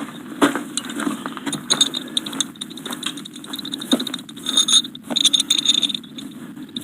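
Metal parts clinking and rattling as they are handled, with many sharp clicks and a bright metallic jingle about two seconds in and again around five seconds in.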